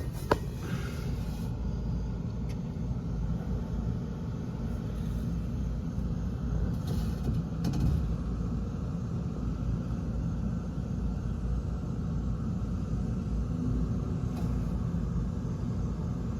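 Steady low rumble with a single sharp click about a third of a second in, and a few faint ticks later on.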